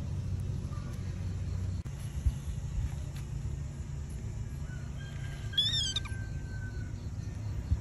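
Baby monkey giving one short, high squeal about five and a half seconds in, over a steady low rumble.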